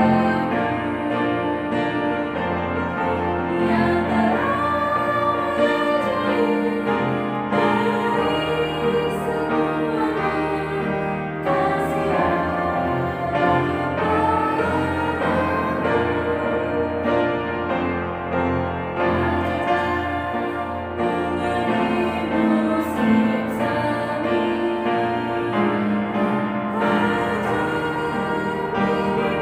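A woman singing a hymn over instrumental accompaniment.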